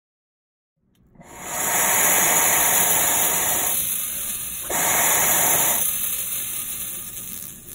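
A dab being taken from a quartz banger on an electric nail under a Vortex spinner carb cap: a hiss of air and vapour drawn through the cap. It starts about a second in, runs as one long pull, breaks off briefly, then comes back for a shorter pull that fades away.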